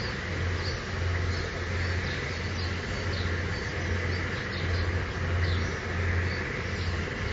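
Motorboat engine drone, a low hum pulsing about once a second, with birds chirping over it.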